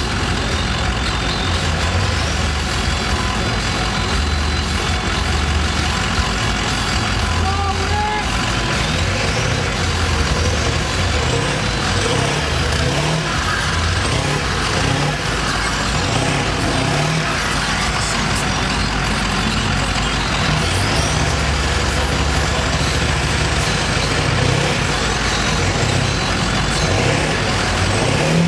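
Lifted Ford F-250 Super Duty on tractor tires wading through deep water: the engine works under load, its low rumble rising and falling with the throttle, over constant splashing and churning of water thrown by the tires.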